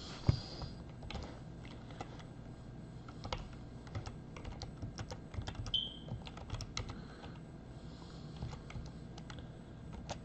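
Computer keyboard being typed on: quick, irregular key clicks as short commands are entered, with pauses between bursts.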